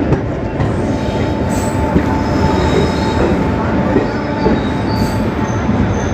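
ICF passenger coach running on the track: a steady loud rumble with a few sharp knocks from the wheels and rails, and faint thin high squealing near the end.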